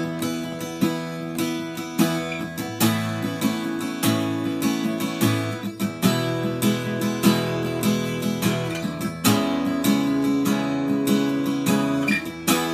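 Steel-string acoustic guitar with new D'Addario EXP19 coated strings, strummed in chords that change every second or two.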